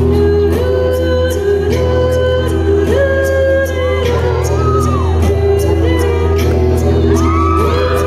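Small choir singing a song in harmony, with held chords and voices gliding between notes, over a steady deep bass and a regular light ticking beat.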